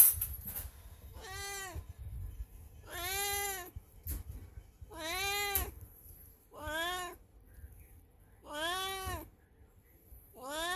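Elderly black female cat in heat, calling: a series of about six drawn-out meows, one every second and a half to two seconds, each rising and then falling in pitch.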